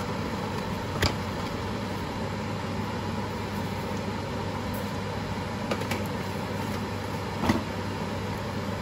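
A steady mechanical hum with a low drone, like a small motor running, with a few light clicks over it: one about a second in and a sharper one near the end.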